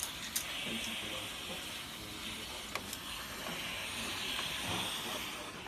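Steam hissing from a hand-held brass steam nozzle held against a kerfed plywood strip to soften it for bending, swelling twice, with a light click near the middle.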